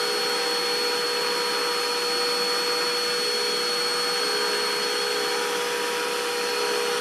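Vacuum cleaner running steadily: an even rush of air with a steady motor whine.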